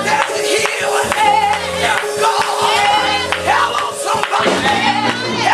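Gospel music during a church praise break: voices singing or shouting over held organ-like chords and a quick percussion beat.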